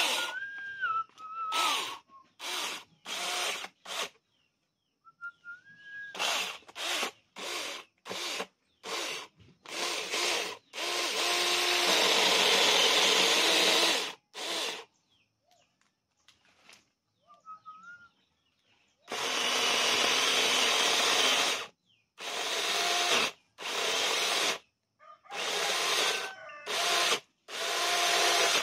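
Cordless 21-volt electric mini chainsaw cutting into a log, its motor starting and stopping in many short trigger bursts, with two longer cuts of about three seconds near the middle and about two-thirds through.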